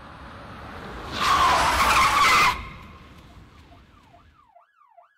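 A skidding car's tyres screeching loudly for about a second and a half, after the rising rush of the approaching car. Near the end an emergency-vehicle siren starts wailing rapidly up and down.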